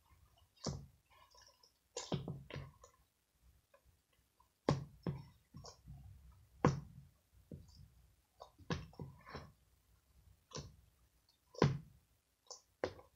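Slime being kneaded and squeezed by hand, giving irregular sharp clicks and pops as air pockets burst.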